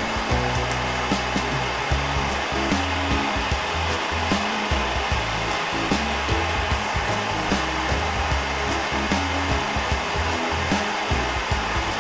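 Propane Lopet bench burner's flame running with a steady rushing hiss, under background music with a regular beat.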